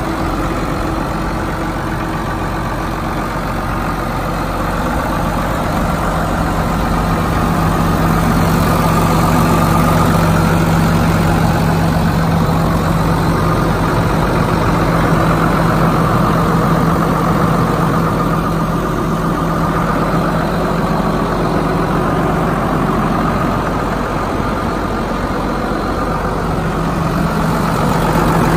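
2006 New Holland TM175 tractor's six-cylinder diesel engine idling steadily.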